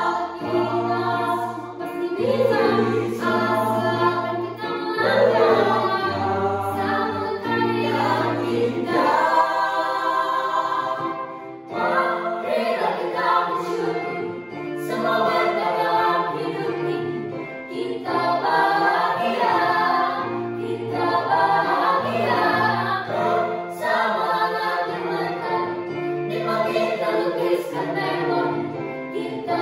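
Mixed choir of teenage boys and girls singing an Indonesian song in harmony, with a short break about twelve seconds in.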